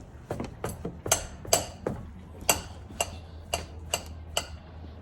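Metal lug wrench clinking against the car's wheel nuts as it is fitted and worked to loosen them: about a dozen sharp, ringing metallic clicks, roughly two a second.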